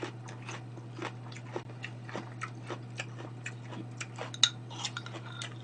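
Close-miked chewing and small mouth noises with light clicks of utensils, and one sharp clink of a utensil against a dish about four and a half seconds in, over a steady low hum.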